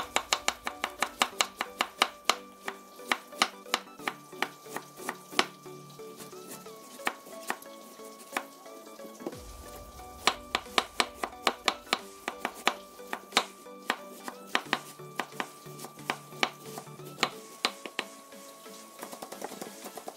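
Chef's knife shredding cabbage on a wooden cutting board: a quick, steady run of sharp chops, about three or four a second, over soft background music.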